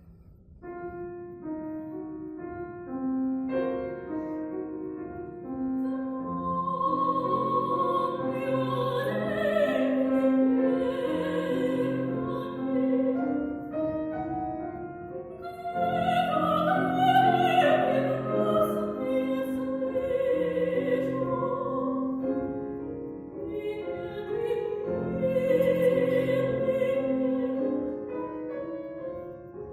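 Classical art song: a trained voice singing with vibrato over piano accompaniment, the music coming in about a second in.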